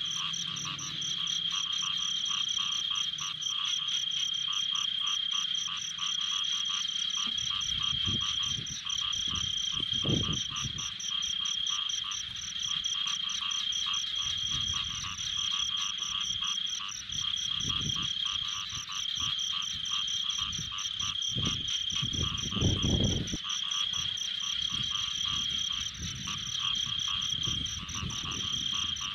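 A steady chorus of frogs calling in rapid pulses, with low wet sloshing of mud and water from hands groping through pond mud, loudest about three-quarters of the way through.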